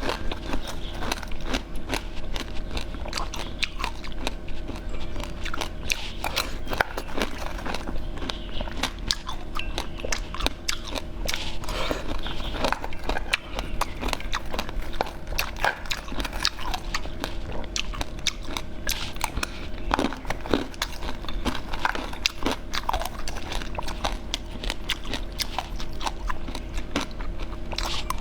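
Close-up mouth sounds of a person biting and chewing sweet cakes and treats, with many quick, irregular clicks and crunches over a steady low hum.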